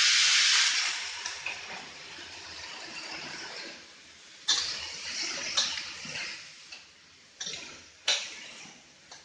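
Shredded bottle gourd sizzling loudly in a wok of hot oil, the sizzle easing off over the first couple of seconds. A spatula then stirs and tosses it several times, each stir bringing a sudden fresh burst of sizzling.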